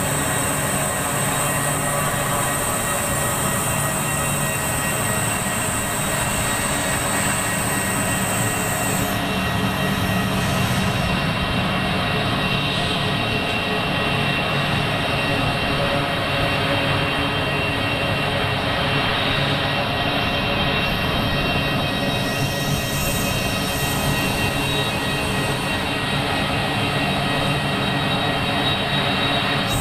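Steady drone of a Grumman C-2 Greyhound's twin turboprop engines as the aircraft moves along the runway, with a thin high whine over the noise.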